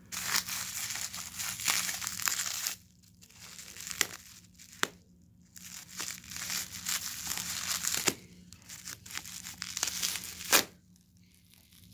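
Plastic bubble wrap being cut and torn with a knife blade and crinkled by hand, in several stretches with short pauses, with a few sharp clicks along the way.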